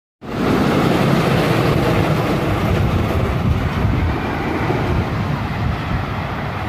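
Wooden roller coaster train running along its timber track, a steady rumbling clatter.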